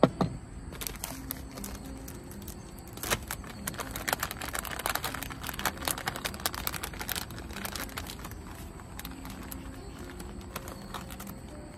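A knock at the very start as something is set down on the table, then a thin plastic food pouch crinkling and crackling as it is picked up and handled, a dense run of crackles from about three to eight seconds in.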